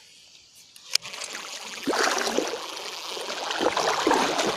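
A sharp click about a second in, then water splashing and churning at the edge of a flooded river.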